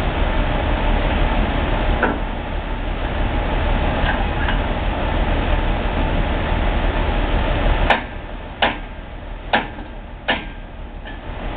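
Four sharp metallic clanks, roughly a second apart, from steel track tools striking the rails of track panels on a trailer. Before them runs a steady background noise that drops away just before the first clank.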